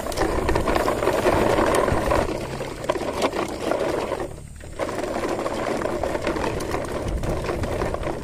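Plastic toy truck and its trailers rattling as their wheels roll over rough concrete and gravel, with a brief pause about halfway through.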